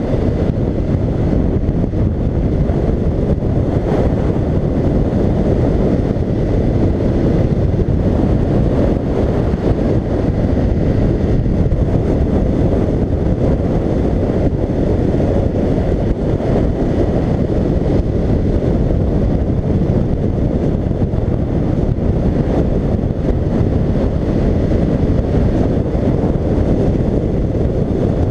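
Steady wind rush over a helmet-mounted camera's microphone on a BMW F 750 GS motorcycle cruising at about 75 km/h, with the bike's engine and tyre noise blended in underneath.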